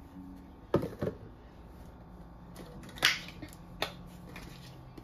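A few sharp clicks and knocks from a plastic pepper shaker being handled over raw steaks, two close together about a second in and a louder clack about three seconds in, over a faint low hum.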